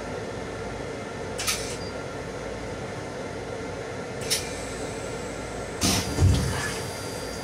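Steady running rumble of an M7 electric railcar heard from inside its small restroom. Three sharp knocks cut through it, about a second and a half in, about four seconds in and near the end, the last followed by a brief low thud.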